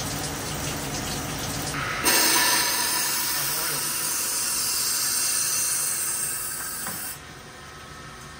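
Nomura NN25 sliding-head CNC lathe cutting a part under flood coolant: a steady machine hum with coolant spraying. About two seconds in, a louder hiss starts suddenly and runs until about seven seconds in, then drops away.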